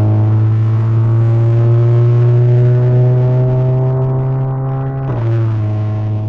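Volkswagen Jetta 2.0 TSI's turbocharged four-cylinder engine running loud under hard acceleration, its note climbing slowly in pitch. About five seconds in the pitch drops sharply at an upshift and the engine pulls on at a lower note.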